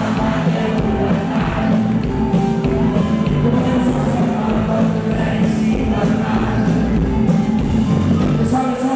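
Live rock band playing: drums, electric bass and guitars, with a man singing.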